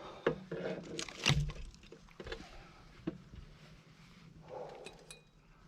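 Handling noise from a hunter's gear: scattered clicks and knocks, with the heaviest thump about a second in and a few fainter clicks later.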